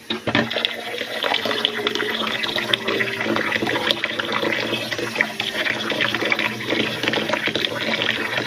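Kitchen tap running steadily into a pot of rice being washed, water splashing over the grains.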